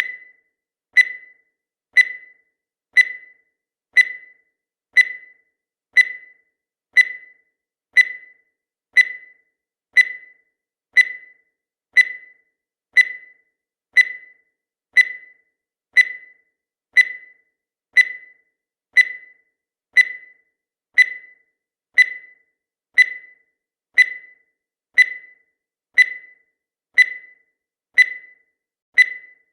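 Countdown timer sound effect: a short, high beep repeating once a second at an even pace, each beep fading quickly.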